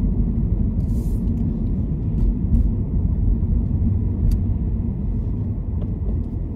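Car interior noise: the steady low rumble of the engine and tyres as the car slows toward a red light, with a brief hiss about a second in.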